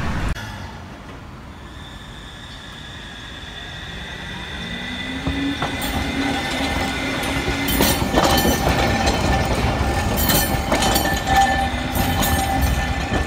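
Sapporo streetcar No. 8521, an electric tram, pulls away and passes close by. Its traction motor hum rises in pitch about four seconds in and then holds. From about eight seconds in, the steel wheels clack repeatedly over the rail joints and crossings of the track.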